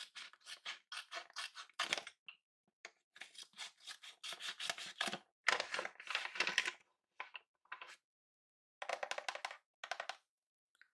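Paper crinkling and rustling as a homemade paper blind bag is squeezed and handled, in short irregular bursts with brief silent gaps.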